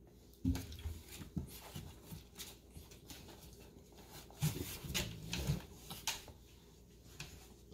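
Golden retriever puppies stirring in a pile, making scattered soft rustles and bumps, with louder clusters about half a second in and again about two-thirds of the way through.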